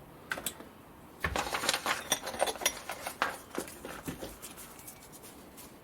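Light metallic clinking and ticking: a dense, irregular run of small clicks starts about a second in and dies away over the next three seconds.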